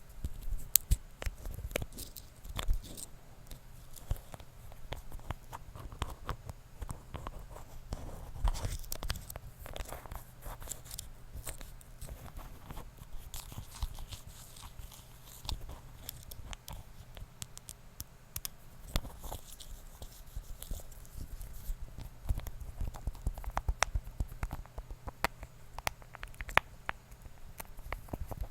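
Close-miked ASMR trigger sounds: a dense, irregular run of small scratches, taps and rustles made by handling objects right at the microphone.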